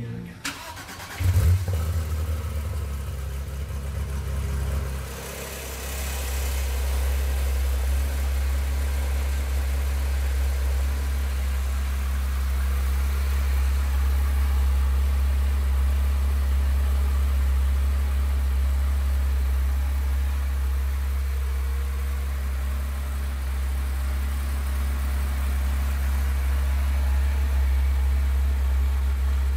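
2019 Porsche 911 GT3 RS's 4.0-litre flat-six cold-starting: a brief crank, a loud flare about a second in, then a steady idle through the exhaust.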